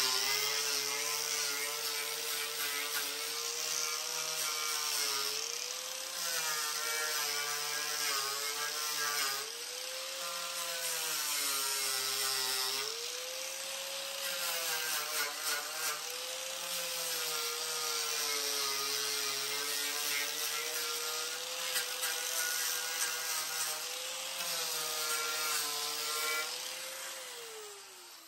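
Angle grinder with a wire wheel running and brushing a rusty nut on a steel car fender; the motor's pitch dips several times as it takes load. Near the end it winds down with a falling whine as it is switched off.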